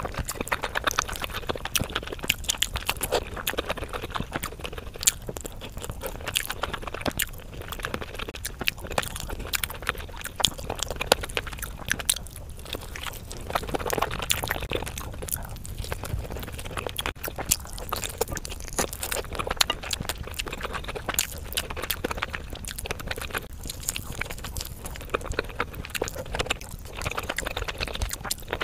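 Chewing and mouth-smacking while eating rotisserie chicken, a continuous run of short sharp clicks.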